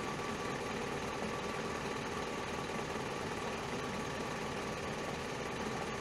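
Truck engine idling steadily, a dense even low rumble with a faint steady whine above it.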